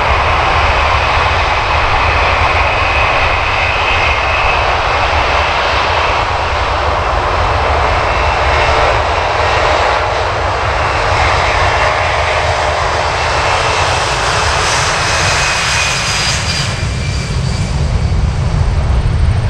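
U.S. Air Force C-17 Globemaster III's four turbofan engines at takeoff power during its takeoff roll: a steady, loud jet roar with a high whine that drops slightly in pitch near the end as the aircraft passes.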